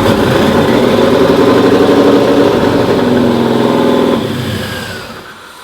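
Small-block Chevy V8 in a Camaro, fed by a freshly rebuilt Holley 750 double-pumper carburetor, running loud just after starting, its pitch easing slightly down about three seconds in before the sound falls away near the end. The carb was cleaned so that the engine would idle.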